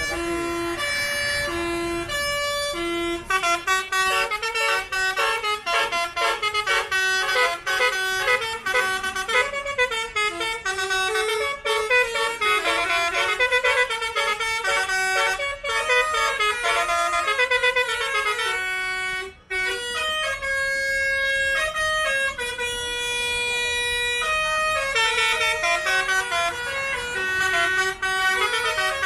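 Bus basuri telolet horn playing a melody of short stepped musical notes, slow repeated notes at first, then a fast tune from about three seconds in, with a brief cut-out about nineteen seconds in.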